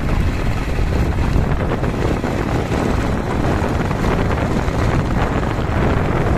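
Strong wind buffeting the microphone: a loud, steady, rough rumble with no engine tone in it.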